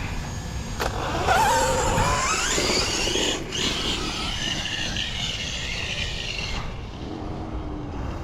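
Losi DBXL-E 2.0 RC buggy's 800 kV brushless motor and drivetrain whining as it accelerates on 12S, the whine climbing in pitch for about two seconds and then held high at full speed. It cuts off at about six and a half seconds, when the throttle is let off.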